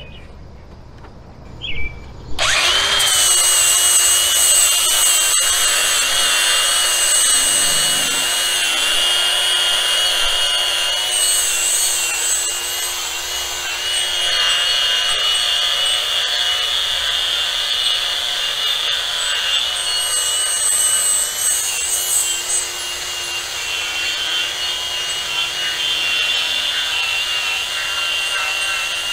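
DeWalt DCG416 20V cordless angle grinder with a 40-grit flap wheel stripping paint and rust off a metal post. It starts about two seconds in and then runs steadily: a high motor whine over the rasp of the flap wheel on the metal.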